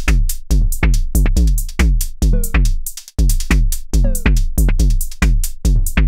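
Mode Machines ADX-1 analog drum machine playing a fast repeating pattern of short hits, each one sliding down in pitch to a deep thud. About two and four seconds in, a higher tone bends through the pattern.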